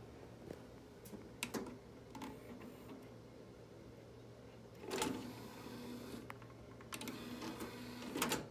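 Toshiba SD-V393SU1 DVD/VCR combo's disc tray mechanism: a few button clicks, then a knock and a small loading motor whirring in two stretches as the DVD tray slides open, ending in a clunk near the end.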